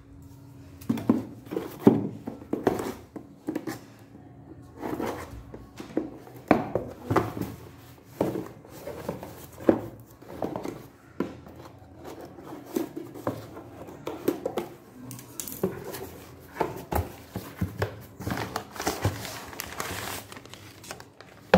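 Insulated lineman's combination pliers and their packaging being handled: irregular taps, clicks and rustles, close up.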